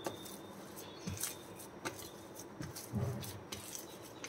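Hand kneading a soft, crumbly potato-and-sago dough in a stainless steel plate: faint rubbing and squishing, with a few light clicks and soft knocks as the plate shifts.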